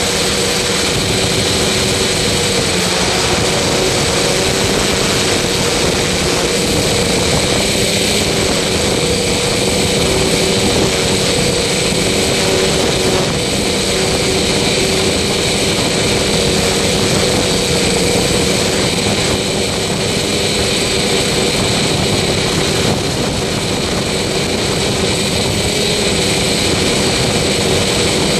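A machine running steadily at a constant speed: a loud, even drone with several constant tones that does not change throughout.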